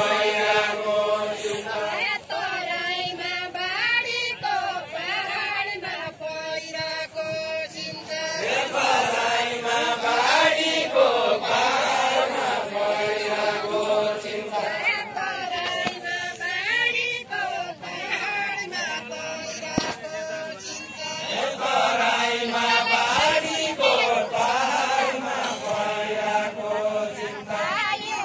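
A group of voices singing a deuda, the far-western Nepali folk song, unaccompanied, in long chanted phrases with short breaks between them.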